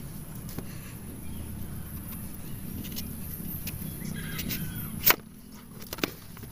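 Kitchen knife slicing a peeled papaya lengthwise on a cutting board, with faint scraping and clicks and a sharp knock about five seconds in as the blade strikes the board, then a lighter tap a second later.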